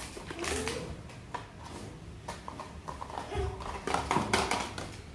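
Irregular knocks, clicks and rustles from a small cardboard blind box and its foil wrapper being handled and shaken.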